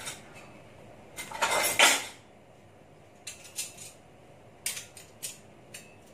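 Metal utensils clattering and scraping against a stainless steel pot as a cooked whole chicken is lifted out of its stock. There is one loud clatter about a second and a half in, then several lighter clinks.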